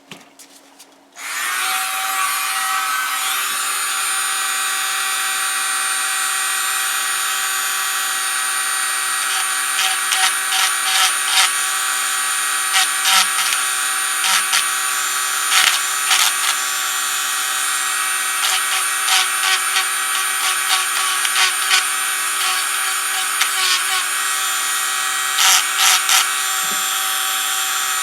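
Proxxon rotary tool switching on about a second in and running steadily with a high whine, its carbide de-burring burr scraping in short repeated bursts against the edges of a machined metal arbor from about ten seconds on.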